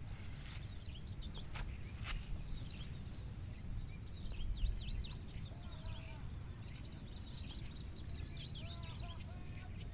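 Outdoor ambience: a steady high-pitched insect drone with birds chirping and calling throughout, over a low rumble. Two short clicks come about two seconds in.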